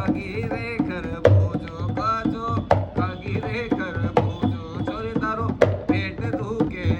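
Rajasthani folk music: a hand drum beating a quick, steady rhythm under a high, wavering melody line.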